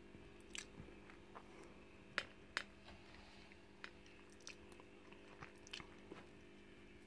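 Near silence over a low steady hum, broken by faint, sharp clicks and taps, about a dozen scattered irregularly over several seconds.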